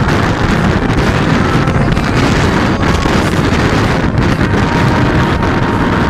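Wind rushing over the microphone of a moving motorcycle: a loud, steady rumble.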